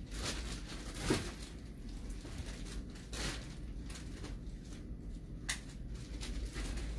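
A low steady hum with a few scattered rustles and knocks, the loudest about a second in.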